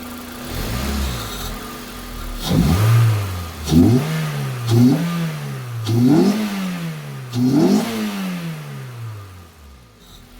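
Toyota Corolla Sportivo's 2ZZ-GE four-cylinder engine being revved in about five quick blips, each rising and falling back, then dropping to idle near the end. It runs with the airbox open, so the intake is loud, and the revs stay well short of redline.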